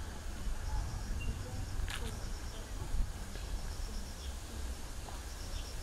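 Outdoor wetland-park ambience: a steady low rumble on the microphone under faint, repeated high bird chirps, with distant voices murmuring in the background.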